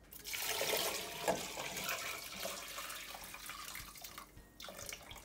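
Water poured from a glass bowl into a stainless steel pot of sliced potatoes, splashing loudest for the first couple of seconds, then tapering off as the bowl empties, with a last short splash near the end.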